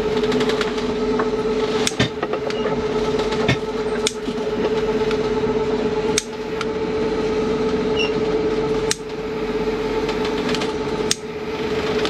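Steady drone of a sailboat's engine heard inside the cabin, with a constant hum. A few sharp clicks and knocks come from small tools and electronic parts being handled.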